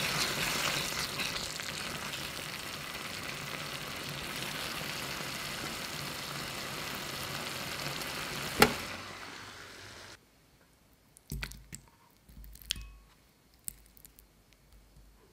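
Tomato sauce sizzling and bubbling in a pan as a wooden spoon stirs it, with one sharp click about two-thirds in. The sizzle stops abruptly and a few soft taps and plops follow as thick sauce is spooned into a ceramic bowl.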